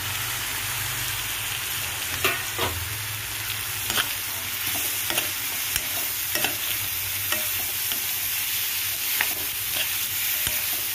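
Drumstick (moringa) pod pieces sizzling in hot oil and spice paste in a wok, stirred with a metal spatula that scrapes and clicks against the pan every second or so.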